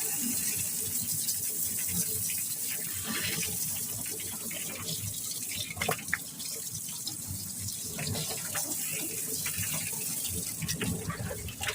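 Water running and splashing in a chicken plucking machine as the birds tumble inside it, with irregular knocks and clicks throughout.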